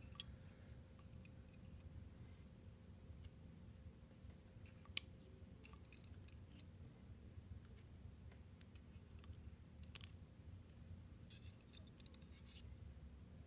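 Faint, scattered clicks of small metal lock parts being handled as a pin-tumbler lock is taken apart and its pins and springs removed. Sharp single clicks about five and ten seconds in, and a quick run of light ticks near the end.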